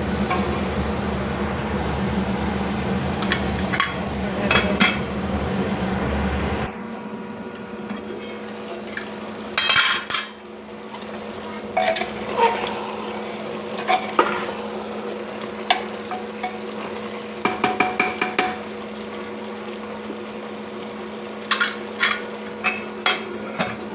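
Metal spoon stirring the masala, tomato and potato-aubergine mixture in a pressure cooker, scraping and clinking against the pot at intervals, with a quick run of taps past the middle and a few more near the end. A steady background noise with a low hum is louder for the first seven seconds or so, then drops away.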